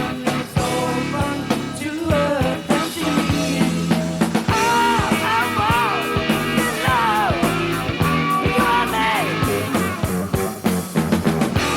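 Hard rock band playing: electric guitar, bass and drum kit, with a high bending melody line through the middle stretch.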